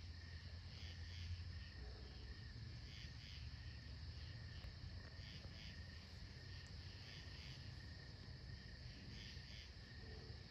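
Night insects chirping: a steady high drone with short chirps repeating about once a second, over a faint low rumble.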